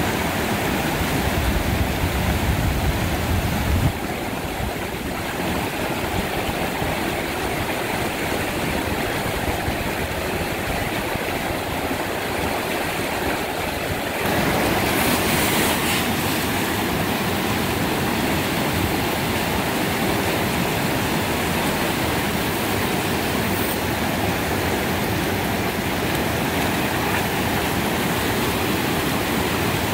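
Whitewater rapids rushing steadily over rocks.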